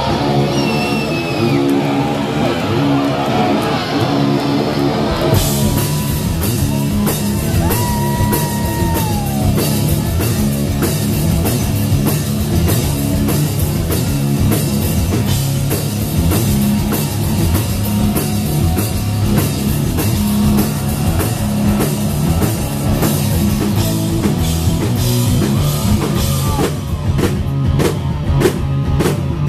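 Live rock band of electric guitar and drum kit, played loud. The guitar plays alone with high sliding notes for about five seconds, then the drums come in and the two play together; near the end they break into a run of separate accented hits.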